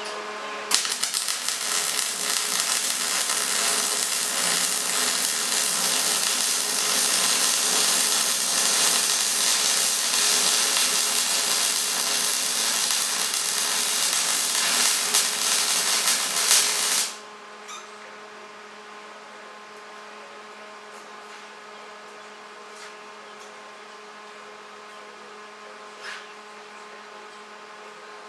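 MIG welder arc crackling steadily as a bead is run on quarter-inch steel tubing; it stops suddenly about 17 seconds in, leaving a quieter steady hum.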